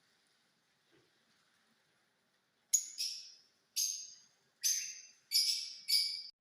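Ringneck parakeet giving a quick run of about six harsh, screeching calls, starting nearly three seconds in, each lasting under half a second.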